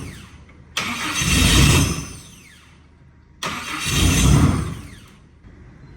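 The Nissan Silvia S14's turbocharged engine, freshly built and running for the first time, blipped twice: each rev jumps up suddenly and falls back over about a second and a half. It then settles to a low, steady idle near the end.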